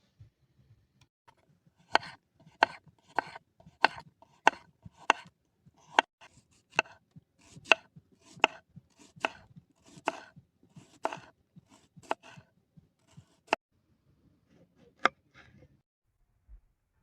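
Knife chopping on a cutting board: a steady series of sharp chops, a little under one a second, then one last chop near the end.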